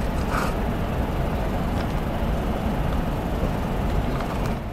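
Steady low rumbling noise with no clear pitch, dropping away sharply near the end.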